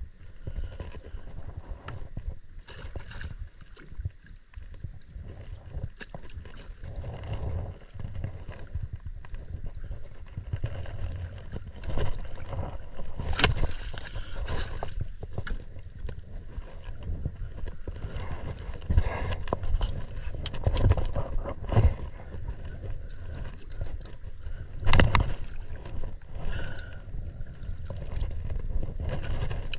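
Water sloshing around a small fishing kayak at sea, with wind buffeting the microphone, broken by several sudden loud noises; the loudest comes about 25 seconds in.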